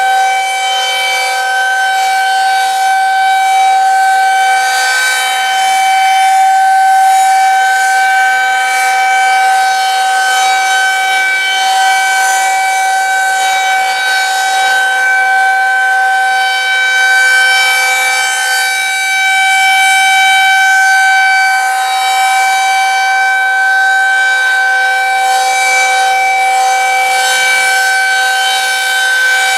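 Federal Signal 2001-130AC electromechanical rotating outdoor warning siren sounding a loud, steady alert tone held at one pitch. The sound swells and fades gently as the horn turns toward and away.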